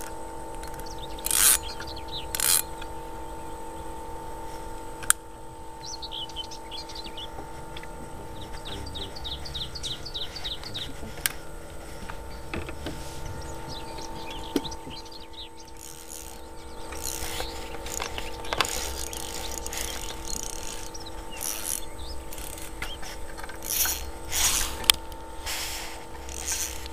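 Spinning fishing reel being wound in short spells as the rod is jigged, with clicks and mechanical whirring, over a steady hum. Birds trill several times in the first half, and two louder noises come about two seconds in.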